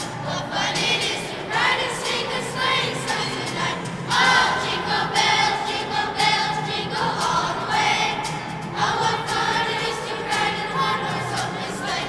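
Children's choir of fifth-grade students singing together.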